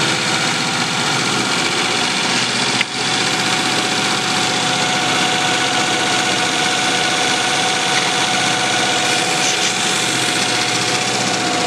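Electric motors spinning a belt-driven intake roller of green compliant wheels at top speed, a steady whine made of several steady tones. There is one brief dip in level with a click about three seconds in. It is being run continuously as an endurance test of how the motors hold up.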